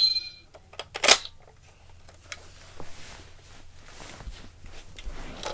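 Plastic clicks and clacks from working the action of a toy M1 Garand rifle: a sharp click at the start with a brief ring after it, a loud clack about a second in, then quieter handling rattles.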